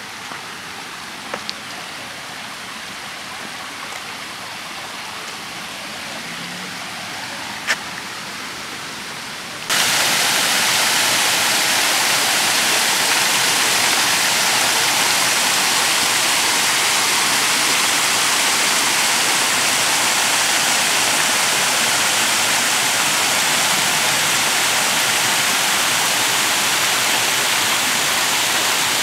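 Creek water running over low stone weirs, then, about ten seconds in, a sudden jump to the much louder steady rush of a small waterfall spilling over a rock ledge into a pool. A few brief clicks in the quieter first part.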